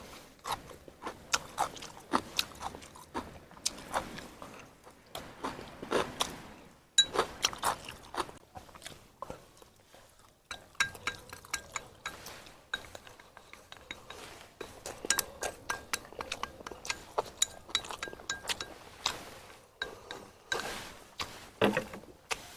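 Close-up eating sounds: a person chewing and crunching food in irregular bites, with light clinks, over background music.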